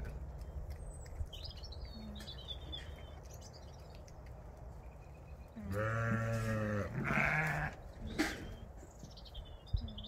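Zwartbles sheep bleating twice in a row about six seconds in: a long baa of about a second, then a shorter, higher one.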